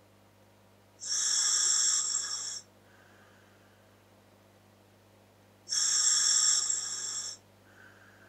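Breathing through a scuba regulator fitted to a Dräger full-face mask: two loud hissing breaths through the regulator, each about a second and a half long and a few seconds apart, with much fainter breath sounds between them.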